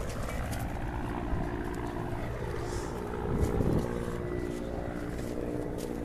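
A steady engine drone holding one pitch, with a short low thump about three and a half seconds in and a few faint clicks.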